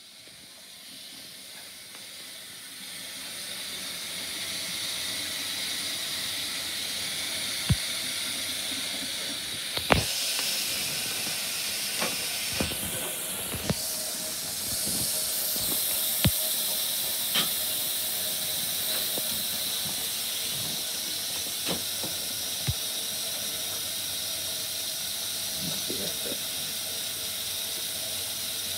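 A steady hiss, with a few sharp clicks and knocks scattered through it as a dog gnaws a ham bone on a paper plate.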